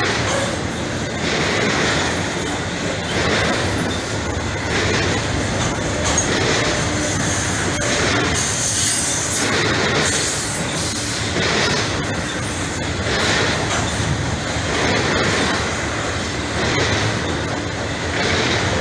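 BNSF intermodal freight train rolling past at speed: a steady rumble and clatter of steel wheels on rail that swells about every one and a half to two seconds as each car's wheel sets go by. A brief high wheel squeal comes about eight seconds in.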